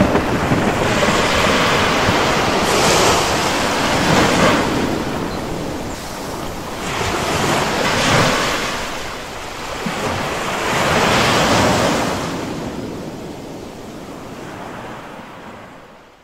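Ocean surf with wind buffeting the microphone: waves swell and break every few seconds. The sound fades away near the end.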